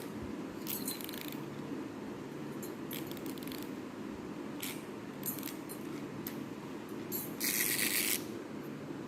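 Small battery-powered toy train running: a steady low motor whir with light plastic clicks and rattles, and a brief louder rattle about three-quarters of the way through.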